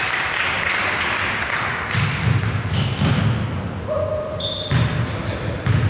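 A basketball bouncing on a hardwood gym floor, with repeated thuds from about two seconds in, and sneakers squeaking briefly several times, all echoing in a large gym.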